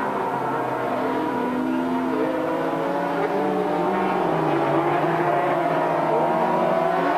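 Several racing sidecar outfits' engines running at high revs, their pitches rising and falling as the outfits accelerate, change gear and pass.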